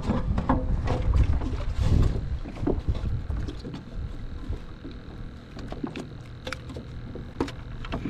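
Handling noises on a fishing kayak: scattered knocks and clicks, over a low wind rumble on the microphone that eases after the first few seconds.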